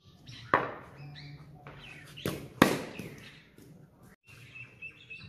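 Cricket bat and ball knocks: three sharp hits, the first about half a second in and two close together near the middle, the second of these the loudest, each with a short ringing tail.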